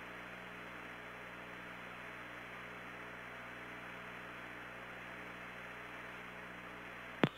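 Steady hiss and low hum of the Apollo 16 radio voice recording between transmissions, with a short click near the end.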